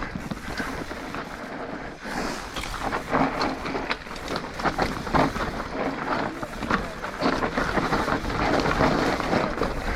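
Yeti SB150 full-suspension mountain bike rolling down a rough, rocky trail: tyres crunching over rock and the frame rattling, with many short knocks throughout. Wind rumbles on the camera microphone.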